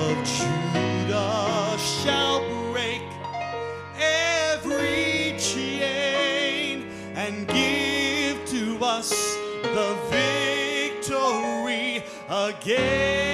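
Southern gospel band music: piano and keyboard chords under a wavering, heavily vibrato lead melody, with a long rising slide near the end.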